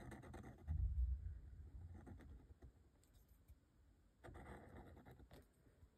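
Metal pen nib scratching faintly across paper as short lines are drawn, with a soft low thud about a second in.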